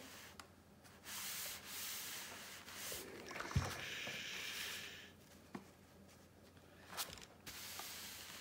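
An iron and fingertips sliding and rubbing over a folded cotton fabric strip on a quilted ironing pad, a dry scraping hiss lasting a few seconds. There is a dull thump about three and a half seconds in and a sharp click about seven seconds in.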